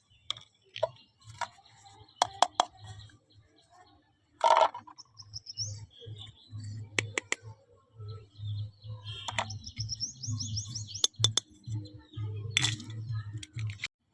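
Small plastic toy kitchen pieces being handled: sharp clicks and taps scattered throughout. Two quick runs of high rising chirps come about 5 and 10 seconds in, over a low pulsing hum.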